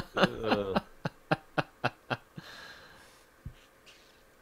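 Laughter: a burst of laughing that trails off into a run of short 'ha' pulses, about four a second, fading out, followed by a breathy exhale. A soft low thump comes near the end.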